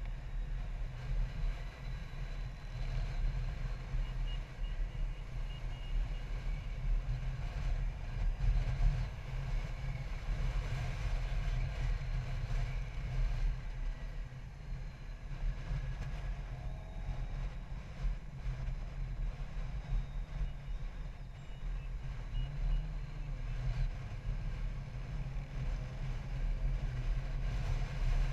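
Touring motorcycle riding at steady road speed, its engine and the wind on the microphone making a continuous low rumble, heard from on the bike.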